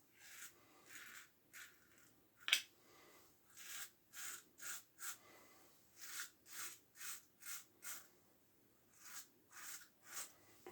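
Single-edge Gem push-button safety razor with a Gem Super Stainless blade scraping through lathered stubble in short strokes, about two a second in little groups, on an against-the-grain pass. One sharp click comes about two and a half seconds in.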